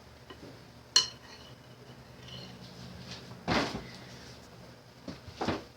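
Kitchen utensils and dishes being handled while muffin batter is portioned: a sharp, ringing clink about a second in, then two brief scraping clatters later on.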